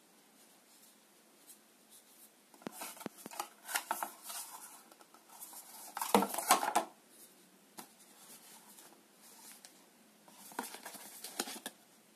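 Paper wrapping and a cardboard box crinkling and rustling as a light bulb and its box are handled. The sounds come in three spells of crackles and clicks: one about three seconds in, the loudest around six seconds, and another near the end.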